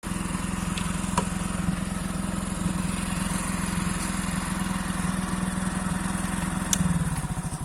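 A small vehicle engine idling with an even rapid pulse, then slowing down near the end as it is shut off. Two sharp clicks, one about a second in and one just before it winds down.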